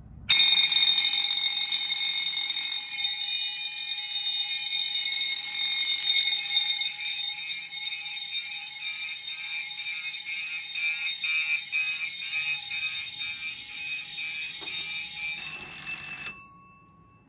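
Several fire alarm notification appliances sounding together in alarm: a loud, continuous ringing that starts suddenly. A pulsing tone, about two a second, joins partway through, and everything cuts off abruptly near the end when the system is silenced.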